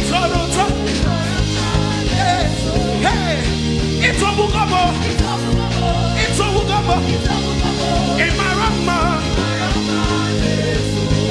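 Band music playing a gospel worship song, with a steady bass line, percussion and a wavering lead melody on top.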